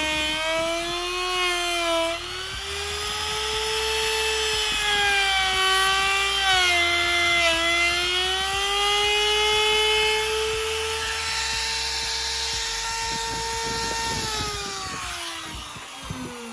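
Ryobi trim router whining as it cuts an edge profile across the grain of a wooden board, its pitch wavering and dipping as the bit takes load. About fourteen seconds in it is switched off, and the whine falls steadily in pitch as the motor winds down.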